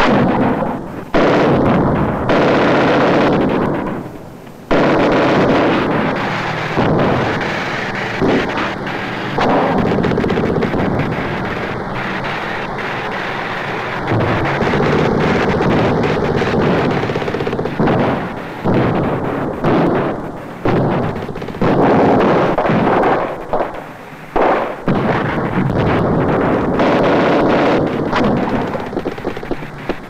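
Battle noise of infantry combat: dense rifle and machine-gun fire mixed with explosions, almost without pause, with a brief lull about four seconds in.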